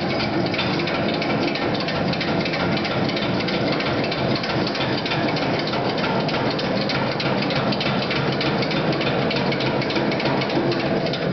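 80-pound mechanical helve power hammer (a modified Appalachian "Rusty" hammer driven through a tire clutch) forging red-hot coil spring steel between its dies, its ram striking in a rapid, even series of blows.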